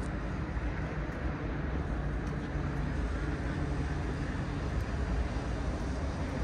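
City street ambience: a steady rumble of road traffic with a few faint ticks.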